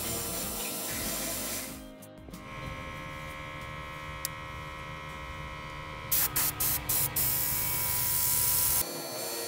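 Airbrush spraying paint: four short bursts of air hiss in quick succession, then a steady spray lasting about a second and a half that cuts off suddenly.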